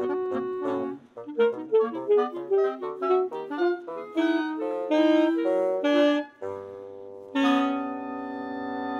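Woodwind ensemble of oboe, clarinet, bass clarinet, bassoon and alto saxophone playing: a held note gives way about a second in to a run of short detached notes climbing step by step in pitch. Then a low bass note enters, and a full sustained chord comes in about seven and a half seconds in and is held.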